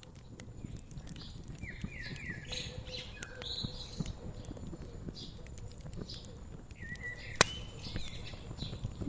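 Wood fire crackling with scattered small pops and one sharp, loud pop about seven seconds in, while small birds chirp repeatedly in the background.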